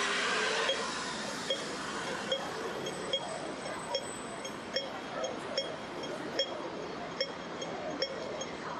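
Hong Kong pedestrian crossing signal ticking slowly and evenly, a sharp ringing tick about every 0.8 seconds, over street hum.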